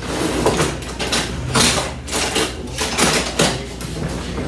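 Kitchen utensils clattering and rattling in irregular knocks as someone rummages through them looking for a pizza cutter.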